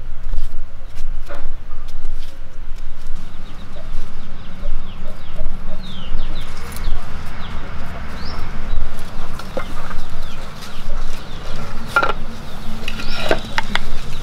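Chickens clucking in the background over a steady low rumble, with a few scattered clicks and knocks near the end.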